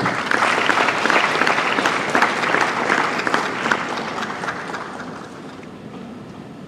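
Audience applauding, a dense patter of hand claps that swells at first and dies away over the last couple of seconds.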